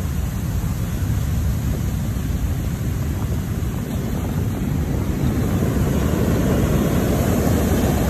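Heavy typhoon-driven surf breaking and rushing in toward the shore, a continuous deep wash of water, with wind buffeting the microphone. It grows louder over the last few seconds as a wave surges in.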